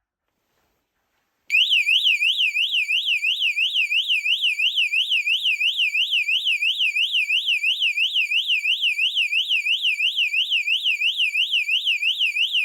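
ONVIAN 115 dB wireless bike anti-theft alarm sounding its siren. It starts abruptly about a second and a half in, a loud electronic warble sweeping up and down about three times a second and keeping on without a break.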